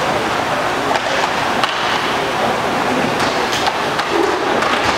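Roller hockey play: a steady rolling noise of inline skate wheels on the rink floor, broken by a few sharp clacks of sticks striking the puck and the floor.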